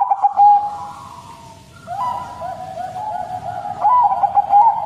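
Bangkok-strain zebra dove (perkutut) cooing: a few loud hooked coo notes at the start, a softer lull, then from about two seconds in a long run of quick short coos that swells loud again near the end.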